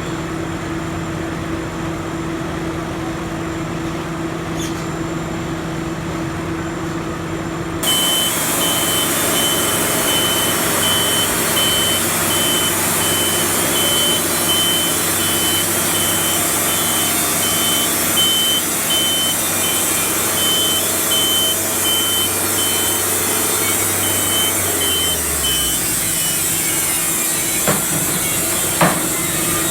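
Machinery engine running steadily. About eight seconds in the sound jumps to a louder, noisier running with an electronic beep repeating roughly twice a second. Near the end the beeping stops and a low hum winds down, followed by two short knocks.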